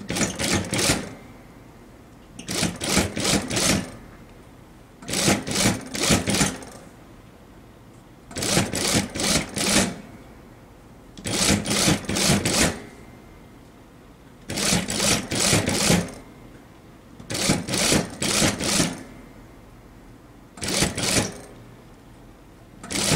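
Industrial single-needle sewing machine stitching a blouse seam in short bursts: about nine runs of rapid stitching, each a second or so, with pauses between while the fabric is held and realigned so it does not shift.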